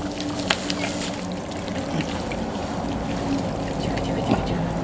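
Wet trickling and squelching as a pig's intestines are pulled out of the carcass and pressed into a galvanised metal bucket, over a faint steady low hum.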